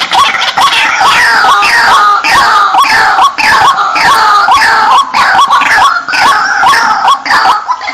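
White-breasted waterhens calling: a loud, continuous chorus of harsh, repeated notes about three a second, with higher calls sliding down in pitch overlapping them.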